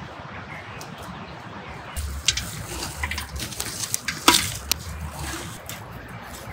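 Water splashing, starting about two seconds in, with scattered clinks and knocks; the loudest knock comes a little after four seconds.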